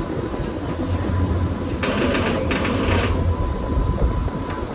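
Streetcar heard from on board while running along its rails: a steady low rumble, with a hissing burst in two parts about two seconds in.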